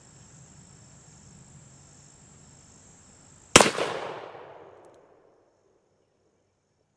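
A single shot from a black-powder percussion pocket revolver, a Pietta 1863 Remington, about three and a half seconds in, its report echoing away over about a second and a half. Before the shot, a faint steady cricket trill.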